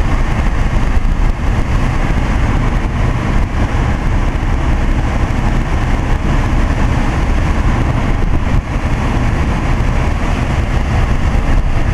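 1993 Toyota Camry V6 running with its air conditioning on: a steady running noise with a strong low rumble.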